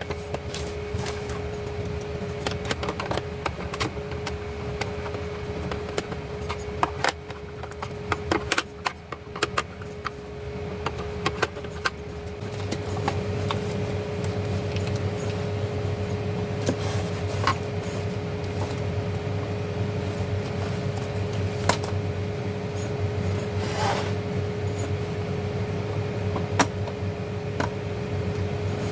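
Scattered small clicks, taps and rattles of an LED emergency light's casing and parts being handled and put back together. A steady background hum runs underneath and grows louder about halfway through.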